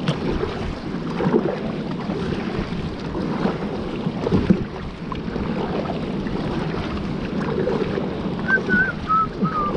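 Wind buffeting the microphone over water sloshing against the hull of a heavily loaded two-person kayak being paddled across open water. A few short, wavering high chirps come near the end.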